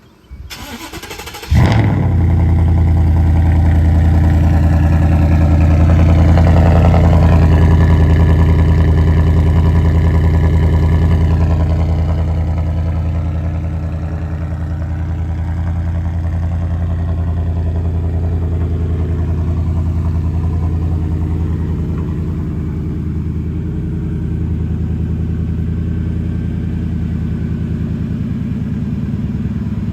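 A 2018 Ford F-150's 5.0 V8 with a custom cat-back exhaust that ends in a tipless dump, cold-starting: a brief crank about a second and a half in, then it catches and runs at a loud fast idle that eases down to a lower, steady idle after about twelve seconds.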